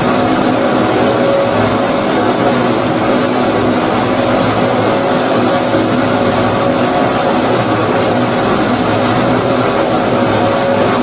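Steady white noise for baby sleep, a rushing hiss weighted toward the low end and meant to imitate the sound heard inside the womb. It runs on evenly without breaks.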